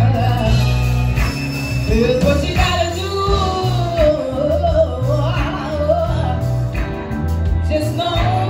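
Band music with a singer's melody over a steady bass line and drums.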